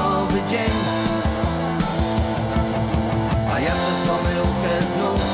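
Instrumental passage of a pop song: band music with a steady beat and no lead vocal.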